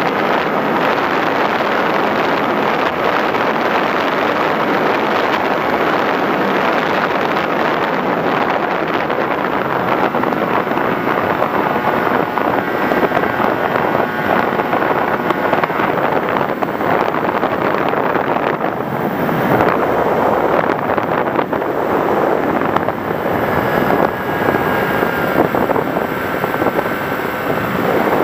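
Wind rushing over the microphone of a flying FPV model plane, with the plane's motor and propeller whining faintly underneath. The whine changes pitch now and then as the throttle changes.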